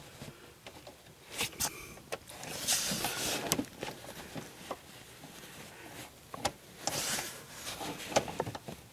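Scattered light clicks and taps with two short bouts of scraping, as a long screw is worked by hand into the threads of a car's short-shifter mount.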